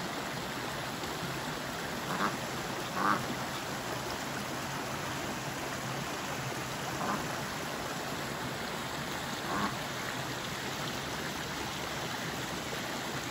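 Ducks quacking four times in short single calls, over a steady rushing noise.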